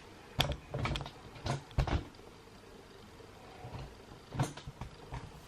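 A string of short clacks and knocks, two or three close together in the first two seconds and a couple more near the end, from a hair crimper being handled.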